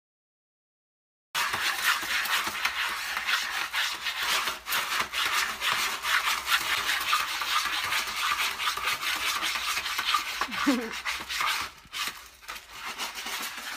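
A cat digging in a litter tray of pellet litter: a fast, dense run of scratching and rasping as its paws rake the pellets. It starts about a second in and fades out near the end.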